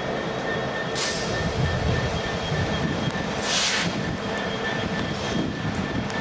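A train running on the rails with a steady rumble and a faint thin wheel squeal. Two short bursts of high hiss come about one second and three and a half seconds in.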